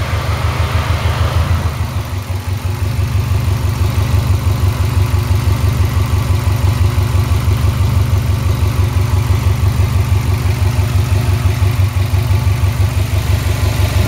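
Car engine idling steadily with the air-conditioning compressor running, dipping briefly in loudness about two seconds in.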